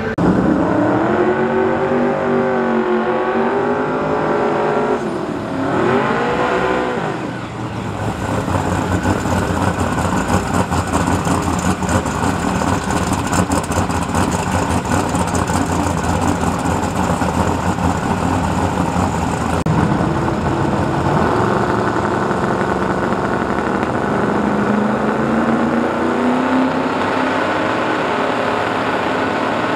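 Race engines of Camaro and Mustang drag cars. At first the revs rise and fall. About eight seconds in comes a loud burnout, engines held at high revs with the tyres spinning, for about twelve seconds. Then the engines run at lower revs, pitch slowly rising, as the cars move up to the line.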